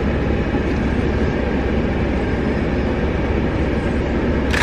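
Steady rumble and hiss of a car driving, heard from inside the cabin.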